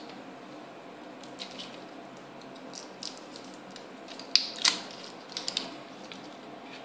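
Clear plastic wrapping on a pair of AAA batteries being crinkled and torn off by hand: scattered crackles, with a few sharp snaps between about four and five and a half seconds in.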